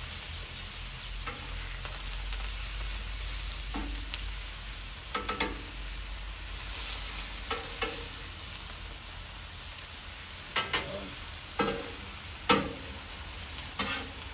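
Food sizzling on a Blackstone flat-top griddle, a steady frying hiss, with a metal spatula clicking and scraping on the steel plate about eight times, the sharpest about twelve seconds in.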